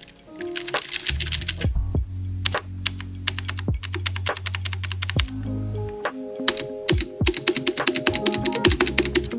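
Typing on an AmazonBasics mechanical keyboard with blue switches: fast runs of clicky keystrokes, sparser in the middle, over background music with a steady bass line.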